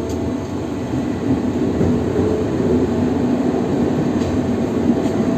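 Locomotive running on the rails through a tunnel, heard from inside its cab: a steady rumble of the running gear and engine with no horn or speech over it.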